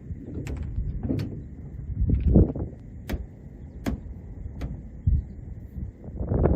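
Handling noise from setting up gear: a handful of sharp clicks and knocks spaced irregularly, with low thumps and rumble between them, the heaviest about two seconds in and again at the end.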